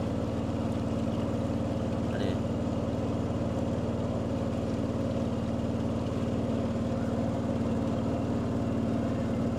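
A river boat's engine running steadily while under way, heard from on board as an even, unchanging drone.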